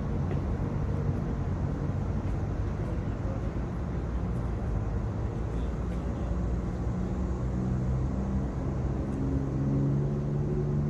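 A large diesel engine, likely the crane's, running steadily with a low rumble. It grows louder and fuller about eight seconds in, as if working harder.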